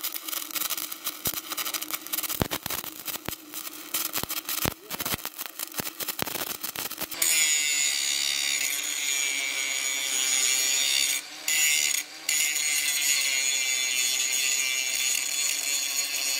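Arc welding with a stick electrode on a steel beam, crackling with irregular sharp pops. After about seven seconds it is replaced by a battery-powered angle grinder grinding a steel I-beam: a steady, loud whine that breaks off briefly twice.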